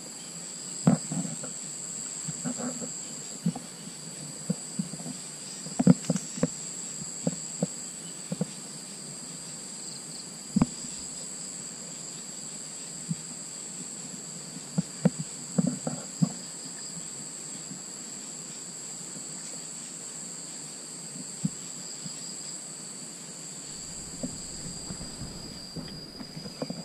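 Steady high-pitched drone of insects in two unbroken tones, with scattered rustles and knocks of someone moving through tall grass and brush. A single sharp click stands out about ten seconds in.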